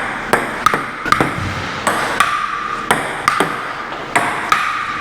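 Table tennis ball clicking back and forth off paddles and table, about ten sharp hits in an uneven rally rhythm.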